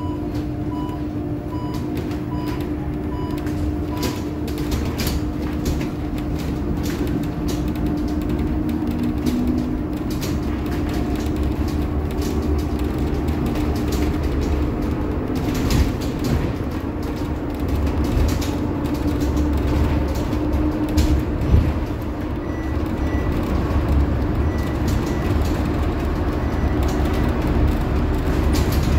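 Cabin of a Scania/Higer Fencer F1 battery-electric bus on the move: low road rumble and tyre noise with frequent rattles and clicks from the body and fittings, over a steady hum. A soft beep repeats about twice a second for the first few seconds, and higher beeps repeat near the end.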